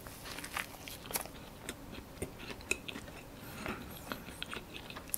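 Close-miked mouth sounds of biting into and chewing a soft white-bread sandwich filled with pandan custard and coconut: faint, scattered little clicks.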